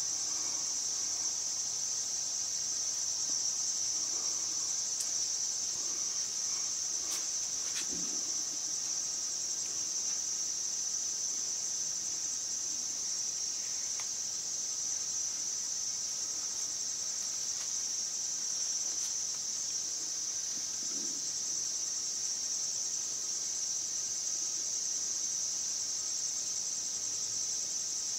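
A dense chorus of crickets trilling steadily and unbroken, high-pitched and unchanging throughout.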